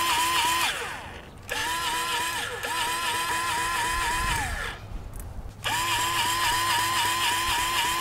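Cordless electric grease gun with a LubeShuttle cartridge pumping into a grease fitting: a motor whine with a quick pulsing pump beat. It runs in three spells, broken by short pauses about a second in and about five seconds in. It keeps running with little grease coming out, which the operator takes to mean the cartridge is out of grease.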